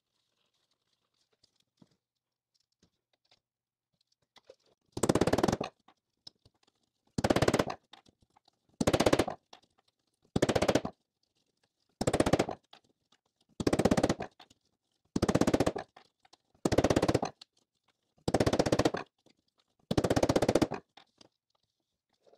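Ball-peen hammer striking a stainless steel window channel over a 3D-printed PLA forming die, in ten quick bursts of rapid metallic taps about a second and a half apart, starting about five seconds in. The hammering is straightening out a bent section of the trim.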